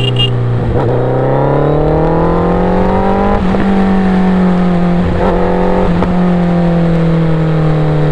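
Suzuki Hayabusa's inline-four engine through a Racefit aftermarket exhaust, under way on the open road. The engine note climbs for a couple of seconds as the bike accelerates, then holds with a couple of brief breaks and eases slowly down near the end.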